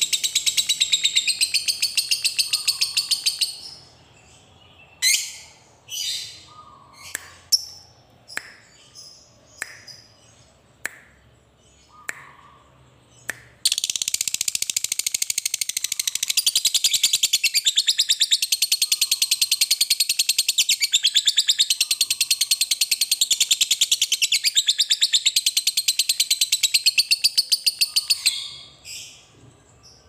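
Fischer's lovebird giving its long, rapid, high-pitched chattering trill (the 'ngekek'). It breaks off after about three seconds into a string of single sharp chirps about one a second. A little before halfway it resumes and runs unbroken for about fourteen seconds before fading near the end.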